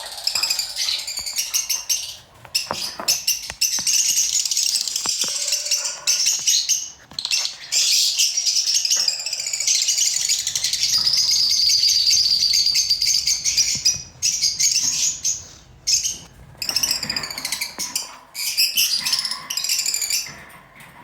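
Lovebirds chattering: dense, high-pitched chirping and twittering that runs almost without pause, broken by a few brief gaps.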